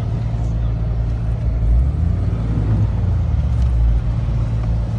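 Suzuki Vitara 4x4's engine running as it is driven off-road, heard from inside the vehicle: a steady low drone that swells a little about two seconds in.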